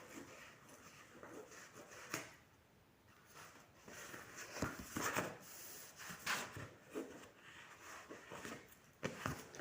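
Scissors cutting a sheet of EVA craft foam: irregular faint snips and rustling as the sheet is handled, busiest around the middle.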